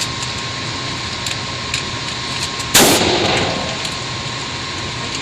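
One loud, close gunshot from a firearm on a shooting range, about halfway through, with a short ringing tail, and a few faint sharp cracks of other shots around it.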